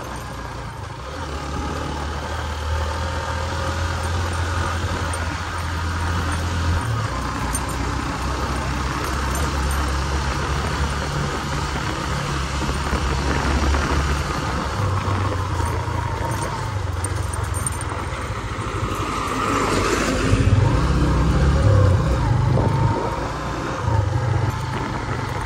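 Motorcycle engine running under way on a rough off-road track, its low note stepping up and down with the throttle, over a steady rushing noise. It grows louder and rougher about twenty seconds in.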